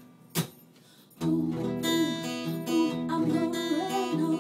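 Taylor 814ce acoustic guitar in a song: the music stops for about a second, broken by a single sharp strum hit. Chord strumming then picks up again, with a woman singing over it.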